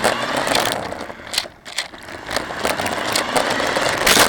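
Small electric RC car running, heard through the camera mounted on it: a noisy rattle and clatter with many sharp clicks, and a loud burst of noise near the end.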